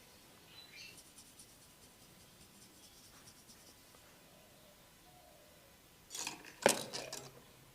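Hands rubbing and scratching during a head massage, with faint light ticking early on. About six seconds in comes a quick flurry of slaps or rubs, capped by one loud, sharp crack.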